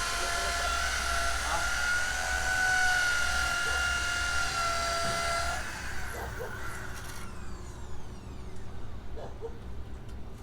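An electric power tool runs with a steady high-pitched whine, shuts off about five and a half seconds in and winds down, leaving a few faint short sounds.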